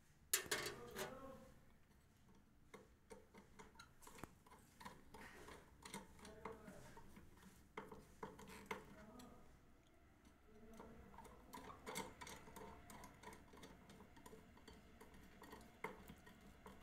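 Faint, irregular small clicks and scrapes of a screwdriver working the terminal screw that clamps a phase wire into a fuse cut-out base, with a louder clatter about half a second in as the tool is picked up and set to the screw.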